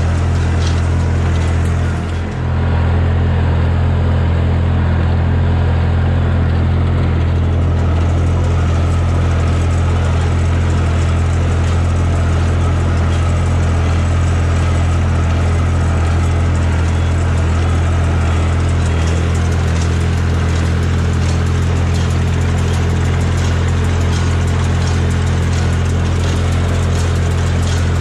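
Massey Ferguson 245 tractor engine running steadily at a constant speed, with a brief dip in loudness about two seconds in.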